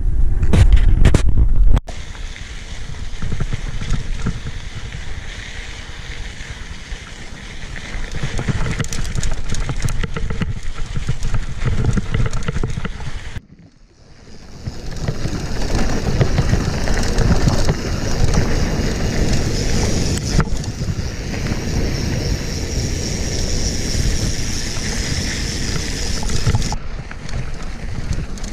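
Mountain bike ridden over a hard-packed track of volcanic sand and stones: the tyres crunch and rumble along with rattling from the bike, under wind buffeting on the microphone, heaviest at the start. The sound drops out suddenly about halfway through, then the riding noise picks up again.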